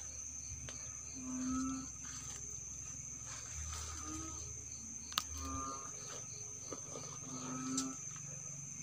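Night insects: a steady high-pitched cricket trill with a regular pulsing chirp beneath it. Four times, about two seconds apart, a short low moo-like animal call sounds, and a single sharp click comes about five seconds in.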